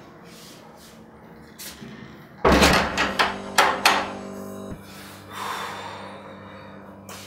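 A wooden front door pushed shut with a heavy thud, then its metal slide bolt worked by hand with a few sharp clicks as it locks.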